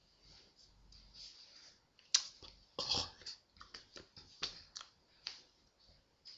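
Sharp clicks and slaps of hands and fingers striking each other while signing, a run of them starting a little after two seconds in, with soft hissing noises between.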